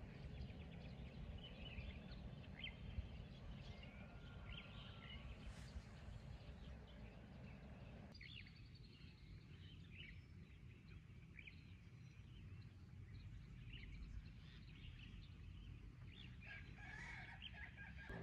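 Faint dawn ambience: scattered short bird calls and a distant rooster crowing over a low steady rumble. The background hush drops about halfway through.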